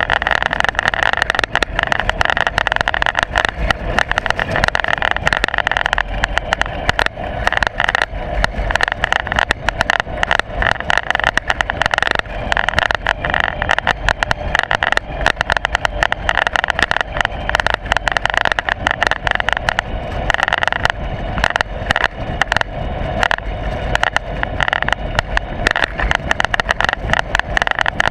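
Loud, steady rattling and rumbling from a loose camera mount shaking on a moving ride, with rapid, irregular clicks and knocks throughout.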